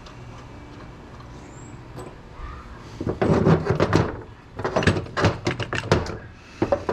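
Heavy metal parts from dismantled electrical switchgear clanking and knocking together as they are handled, in a burst of several sharp clanks starting about three seconds in.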